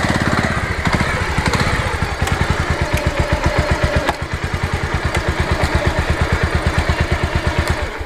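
Motorcycle engine idling with an even, rapid beat of exhaust pulses while the bike is walked round by hand.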